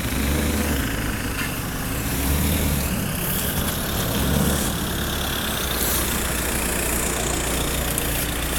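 Porsche Cayenne S V8 running at low speed as the SUV drives slowly away, its low exhaust note swelling a few times.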